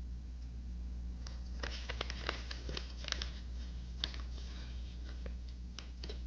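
Paper being handled: scattered light taps, rustles and crinkles of paper pieces, over a steady low hum.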